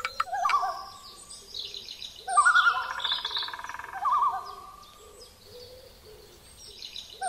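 Bird calls: quavering, warbling calls with higher chirps above them, loudest in a long trilled phrase a couple of seconds in, then fading away.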